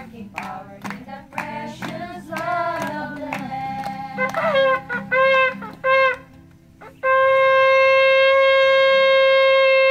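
Shofar blown: three short blasts, then one long steady blast of about three seconds that ends abruptly.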